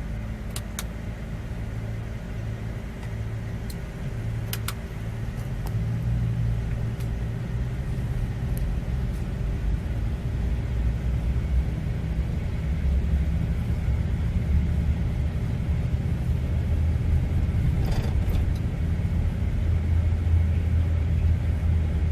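Chevy Avalanche pickup's V8 engine running with a steady low hum whose pitch shifts a little and which grows louder about six seconds in, with a few faint clicks early on.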